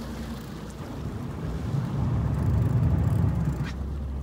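Boat engine running with a steady low hum, swelling to a louder low rumble for about two seconds in the middle.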